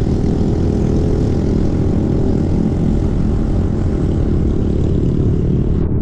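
Wind rushing and buffeting on the microphone of a camera on a moving motorcycle, with the bike's small engine running steadily underneath at cruising speed.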